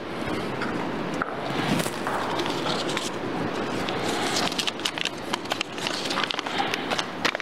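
Rustling and clattering handling noise with many small clicks, thickest in the second half, over a low murmur of voices.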